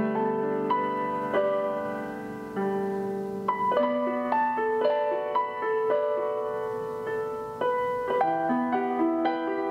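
Background piano music: a slow melody of single notes over lower held notes, each note starting sharply and fading.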